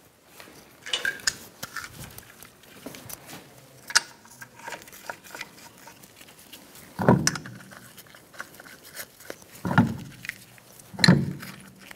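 Steel lug nuts clicking and clinking against the wheel studs and alloy wheel as a car wheel is hung on the hub and the nuts are threaded on by hand, with three louder metallic knocks in the second half.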